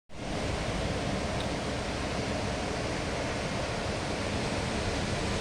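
Sea surf washing onto the shore, a steady rushing noise.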